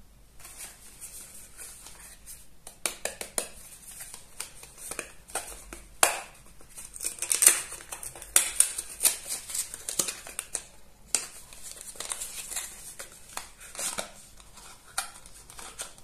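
Hands opening a small white cardboard box with a LEGO figure inside: an irregular run of light scrapes, rustles and clicks of card and plastic, busiest and loudest around the middle.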